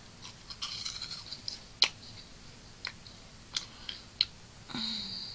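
Close-up crunching of a crisp puffed snack being chewed, heard as irregular sharp crunches with two loudest snaps at about two and four seconds in. A brief low hum follows near the end.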